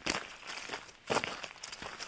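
Footsteps walking on gravel: about four steps at a steady walking pace.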